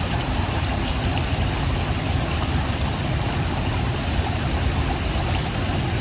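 Wailuku River flowing over rocks in shallow riffles: a steady rushing of water with a low rumble underneath.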